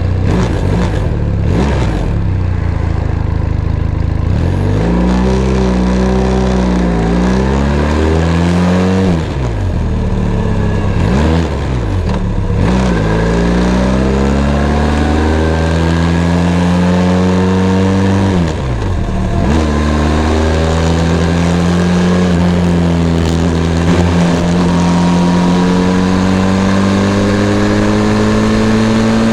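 Benelli TRK 502 X's 500 cc parallel-twin engine pulling through the gears under acceleration. The note rises and drops back several times in quick succession during the first half as it is shifted up, then climbs slowly through two long pulls near the end.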